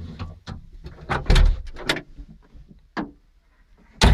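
Cab door of a New Holland Kobelco E50B SR mini excavator being handled: a run of knocks and rattles, with loud bangs a little over a second in and again near the end as the door is pulled to.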